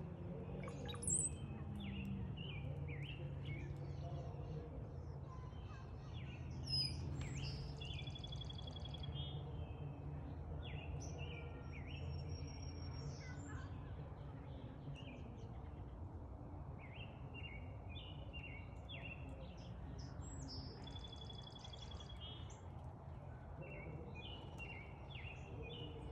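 Several songbirds chirping: short repeated chirps run throughout, with a few higher whistles and trills, the loudest about a second in and again about seven seconds in. A steady low rumble runs underneath.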